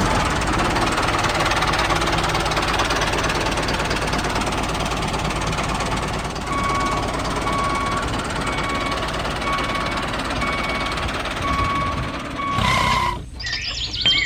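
Tractor engine running with a rattly, knocking clatter. From about halfway a short beep sounds about once a second. The engine cuts off near the end.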